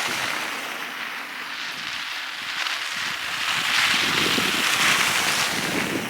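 Strong wind rushing through a snowstorm, a steady hiss that swells to its loudest about four to five seconds in.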